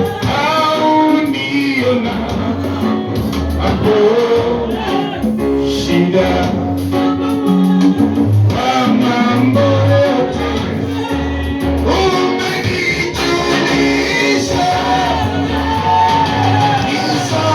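Live worship music: voices singing a melody over a band with bass notes and a held chord.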